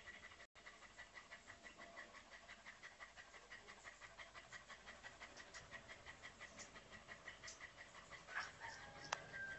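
A dog panting with its tongue out: soft, quick, even breaths, several a second, faint. Near the end comes a sharp click, then a brief high thin squeak.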